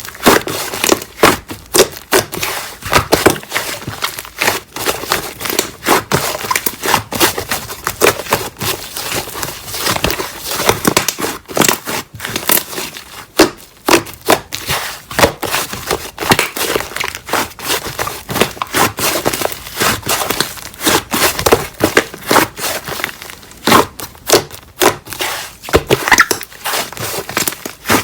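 Slime being squeezed, stretched and pressed by hand, giving a dense run of irregular crackling pops and clicks.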